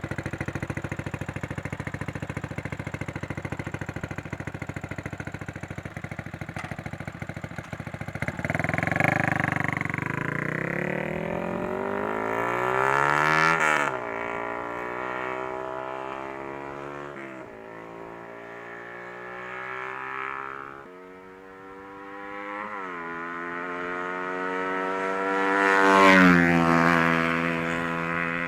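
Yamaha Sniper 150's single-cylinder four-stroke engine through a Proliner TR1 aftermarket exhaust, idling steadily for about eight seconds. Then it is revved, the pitch climbing and falling several times, with the loudest peak near the end.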